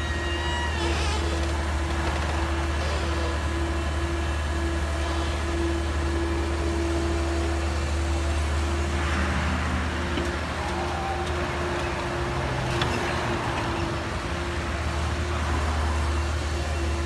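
Komatsu PC138US hydraulic excavator's diesel engine running steadily under working load as it digs and swings a bucket of soil, a constant low drone with a steady hum over it. A rushing hiss rises about nine seconds in and again later on.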